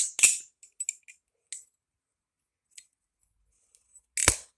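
Bushing-pivot balisong (butterfly knife) being flipped: quick sharp metallic clicks of the handles and latch swinging around in the first second and a half, a quiet pause, then one louder clack near the end.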